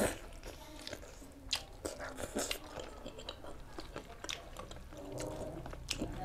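A person chewing and biting food close to the microphone, with scattered wet smacks and clicks.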